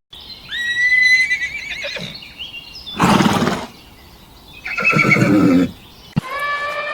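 Horse whinnying: a high, wavering neigh, then two louder, rougher and lower calls about a second apart.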